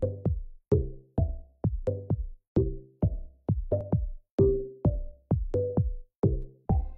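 Intro music with a steady drum-machine beat, about two beats a second, over pitched electronic notes.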